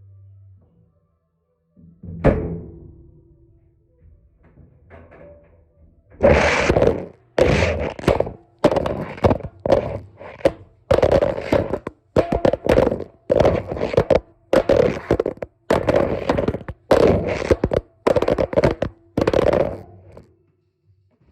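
Repeated thuds, about one a second, of a phone in a rugged case tumbling and striking the inside of a turning washing-machine drum. A single knock comes a couple of seconds before the regular thudding starts.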